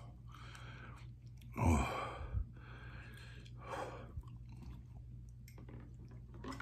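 A man blowing and sighing hard through his mouth, about five breathy exhales and gasps with the loudest about one and a half seconds in, fighting the burn of Thor's Hammer hot sauce.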